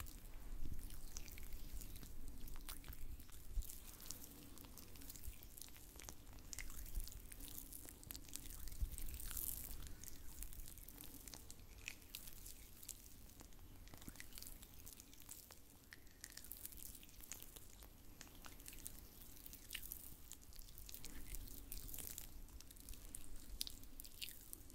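Oiled hands rubbing and massaging, giving soft wet squishing with many small sticky crackles and clicks.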